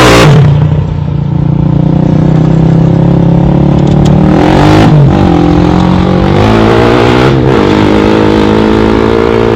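ATV engine running under throttle, its revs dropping and climbing again a few times, with a loud hiss of sand or dirt being thrown in the first half second.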